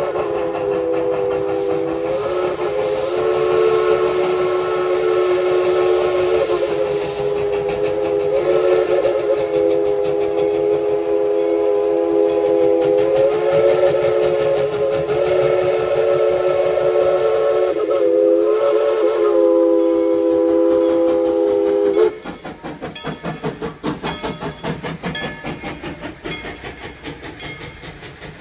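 Steam locomotive whistle blowing one long blast of several tones sounding together, wavering a few times and cutting off suddenly about 22 seconds in. After it, the passing steam train chugs in a steady rhythm.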